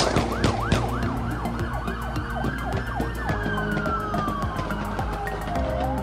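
Police siren switching from a rapid yelp to a slow wail. Quick up-and-down whoops for about the first three seconds, then one long falling tone that starts to rise again near the end.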